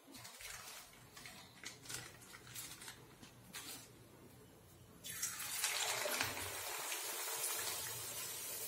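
Ariselu dough disc slid into hot oil in an iron wok, which begins sizzling suddenly about five seconds in and keeps frying steadily. Before that there are light taps and rustles as the dough is lifted off its board.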